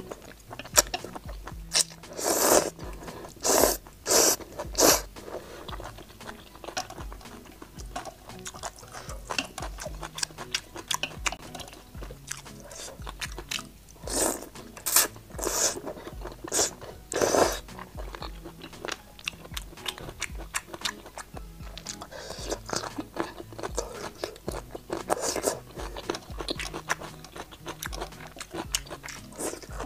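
Close-miked eating: noodles and kelp slurped from a spicy braised broth and chewed, in loud wet bursts clustered in three spells, with quiet background music underneath.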